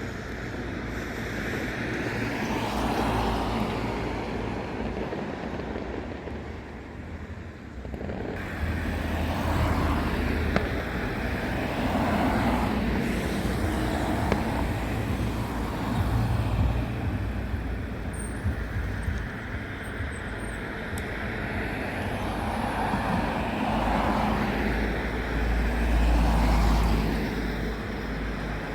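Road traffic: cars passing one after another, each swelling and fading, over a steady background of traffic noise.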